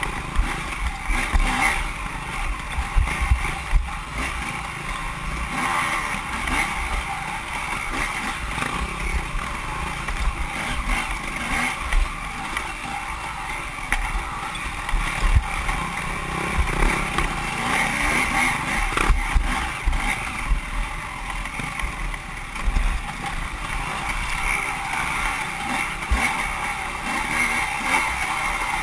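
Off-road racing motorcycle (dirt bike) engine running hard, its note rising and falling as it is ridden over rough ground, with irregular low thumps.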